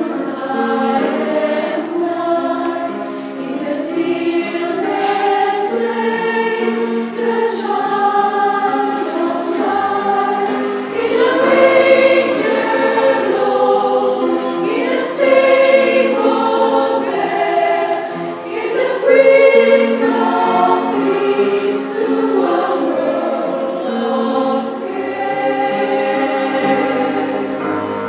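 Mixed choir of women's and men's voices singing a Christmas cantata in parts, growing louder for a while around the middle.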